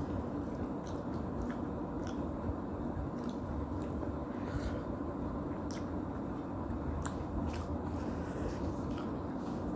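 A person chewing soft noodles close to the microphone, with wet mouth sounds and scattered light clicks over a steady low hum.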